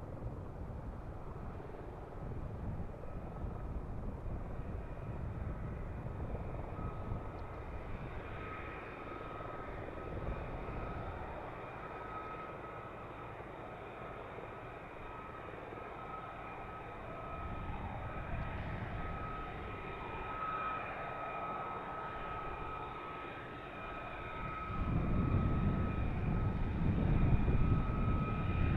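F-35A's single Pratt & Whitney F135 jet engine running with a steady high whine over a rumble. The rumble grows much louder near the end.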